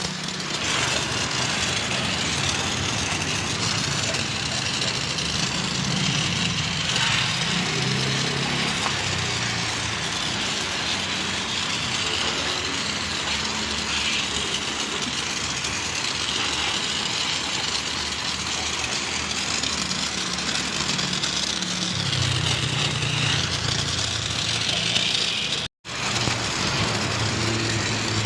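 A motor running steadily under a continuous hiss, cutting out for an instant near the end.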